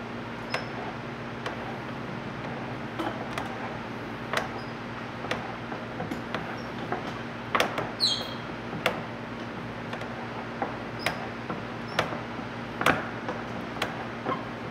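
Sparse, irregular clicks and creaks as a hardwood joint is drawn shut under a clamp, with a brief high squeak about eight seconds in, over a faint steady hum.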